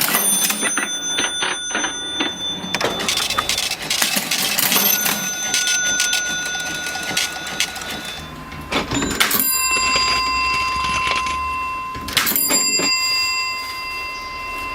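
Vintage mechanical cash register being worked: keys and levers clacking, with its bell ringing about four times and each ring hanging on.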